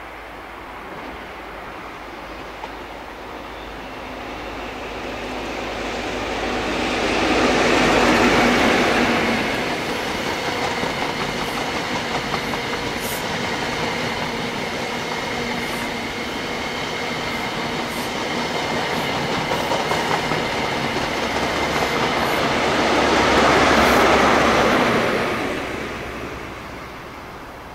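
InterCity 125 (HST) passing at speed. The leading diesel power car swells to a peak about eight seconds in. The coaches rumble past with scattered wheel clicks, then the trailing power car peaks again and the sound fades near the end.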